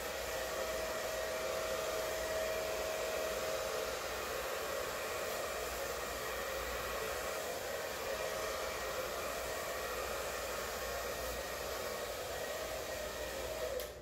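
Handheld hair dryer running steadily on a blast of air over wet acrylic paint: an even rushing hiss with a faint steady whine. It switches off abruptly at the very end.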